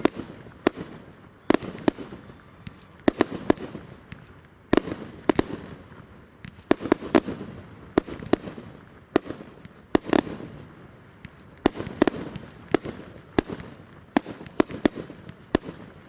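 Fireworks display: fireworks bursting in quick succession, sharp bangs at an irregular pace, often one or two a second, with rumbling echoes between them.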